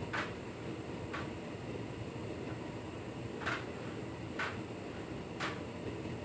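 Hotpoint Ultima S Line tumble dryer running mid-cycle: a steady hum from the drum and fan, with a light click or knock every second or so as the drum turns.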